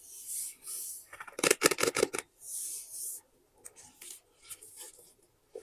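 Paper being handled for a scrapbook: soft swishes of sheets sliding, a quick run of crisp crackles and snaps about a second and a half in (the loudest part), then scattered light taps and rustles.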